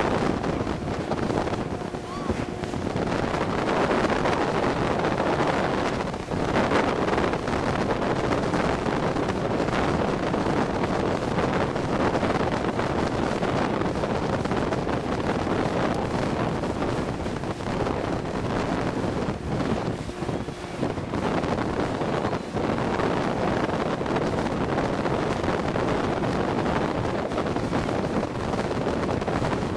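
Wind buffeting the microphone and water rushing in the wake of a speedboat running at speed while towing an inflatable tube, loud and steady throughout.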